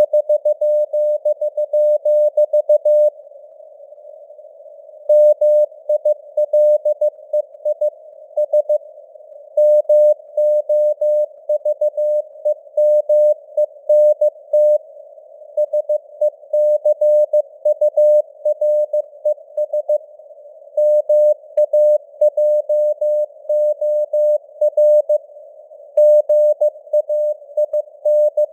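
Morse code at 15 words per minute: a tone of about 600 Hz keyed in dots and dashes, spelling out news text, over a narrow band of simulated radio static. The keying breaks off for about two seconds near the start, then carries on.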